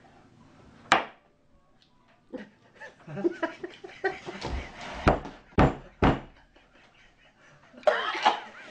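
Quiet room with faint murmuring. A sharp click comes about a second in, then three dull thumps about half a second apart around the middle, and a brief burst of voice near the end.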